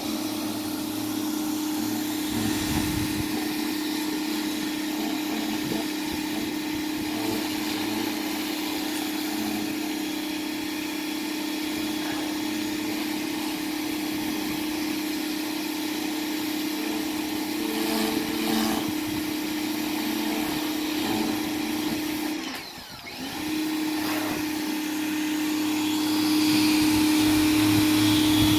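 Pressure washer running with a steady hum, its wand spraying a high-pressure water jet onto house siding. The sound drops out for about a second toward the end, then resumes and is louder in the last few seconds.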